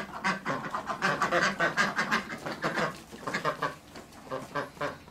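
Domestic ducks quacking, many short calls in quick succession overlapping one another; the calling thins out a little after about three seconds.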